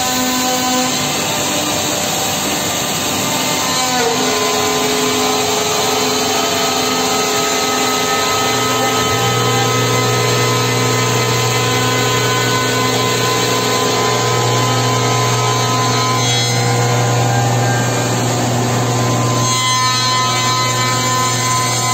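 Four-spindle CNC wood machining centre cutting small wooden parts: the spindles run with many steady tones over a dense cutting noise. A deeper steady hum joins about nine seconds in.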